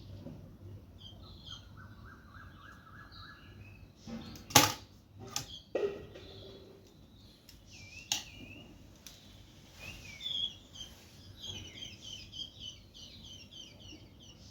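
Small birds chirping, with a fast trill of repeated notes in the first few seconds and a run of quick high chirps in the last few seconds. A few sharp clicks or knocks, about four to eight seconds in, are the loudest sounds.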